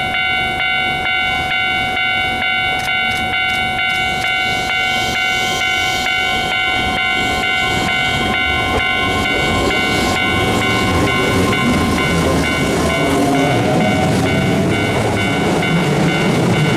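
Keihan 13000 series electric train pulling away from a platform: steady high tones sound at first, then the motors' whine rises as it accelerates, and the rumble of the wheels on the rails grows louder near the end.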